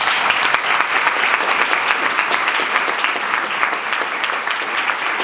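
Audience applauding; the clapping starts abruptly and holds at a steady level.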